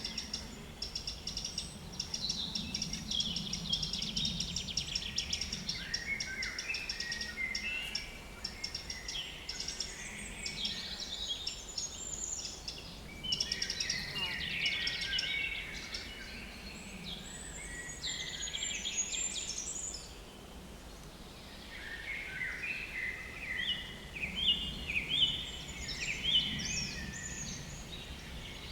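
Several small woodland songbirds singing over one another in quick, overlapping phrases, with a low fly buzz near the microphone coming and going underneath.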